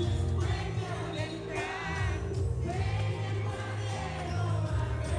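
Background music with a singing voice over a steady bass line.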